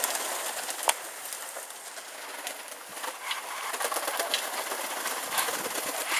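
A flock of Vouta pigeons flapping their wings as they come down out of the sky and land on a roof, with one sharp clap about a second in.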